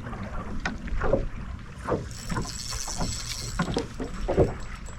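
Small fishing boat on open water: water knocking and slapping irregularly against the hull over a steady low rumble of wind on the microphone.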